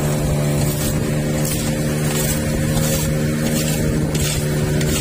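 Longboat's outboard motor running steadily at cruising speed, a constant low drone, with river water rushing and splashing against the hull in regular surges about every two-thirds of a second.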